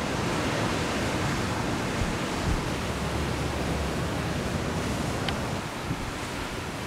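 Steady noise of ocean surf breaking, mixed with wind on the microphone that swells into a low rumble about halfway through.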